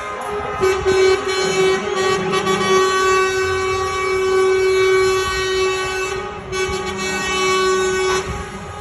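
Truck air horn blown in one long, steady blast, starting about half a second in and stopping just before the end, with a brief dip about six and a half seconds in.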